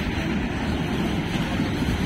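Passenger train coaches rolling past close by: a steady, even rumble of steel wheels on the rails.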